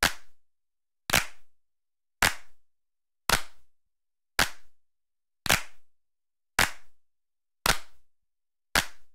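A sharp, snappy click repeated at an even pace, about once every 1.1 seconds (nine in all), each with a short fading tail and silence in between: a rhythmic click sound effect.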